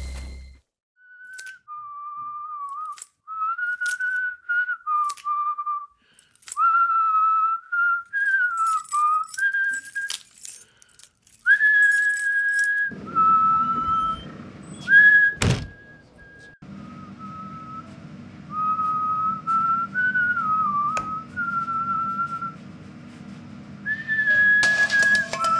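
A person whistling a tune in short phrases of held, slightly bending notes. A low steady hum comes in about halfway through, and a few sharp clicks and one louder knock fall among the notes.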